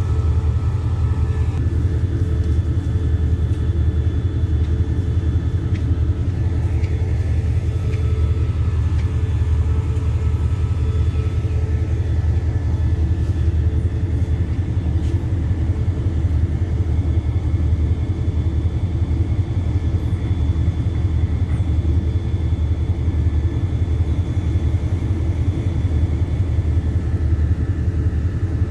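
Diesel train idling at the platform: a steady, unbroken low engine rumble.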